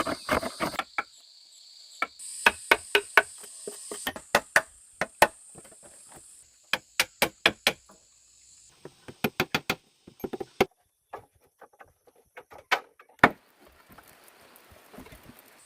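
Hammer blows on wood, in runs of several strikes at about three a second with pauses between. A steady high insect buzz runs under the first half.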